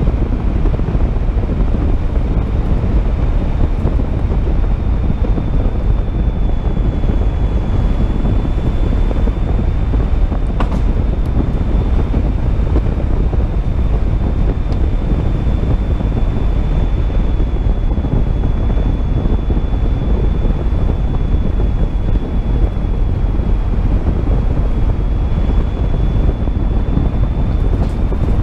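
Car driving on a gravel road at about 60 km/h: a steady rush of wind on the microphone and tyre-on-gravel road noise, with a thin steady high whine throughout and a single click about ten seconds in.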